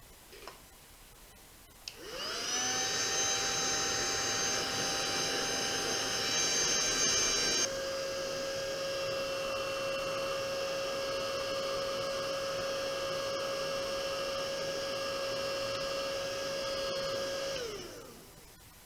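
Hair dryer switched on and running with a steady whine, dropping to a lower, slightly quieter setting about a third of the way in, then switched off and spinning down near the end. It is drying the body glue on the Lexan shell.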